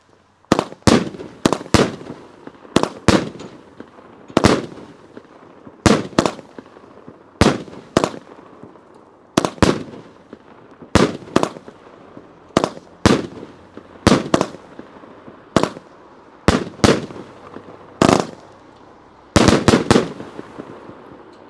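Memory Fireworks 'Dakota King Salmon' 200-gram consumer cake firing: a run of sharp shell bursts overhead, about one to two a second and often in pairs, ending with a quick volley of four or five.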